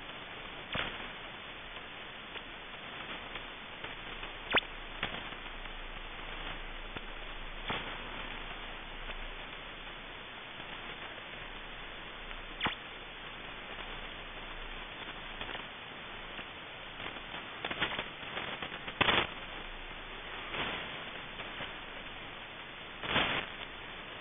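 Shortwave receiver tuned to 5000 kHz giving a steady hiss of band static, broken every few seconds by a short blip or crackle, with a cluster of louder ones about three quarters through.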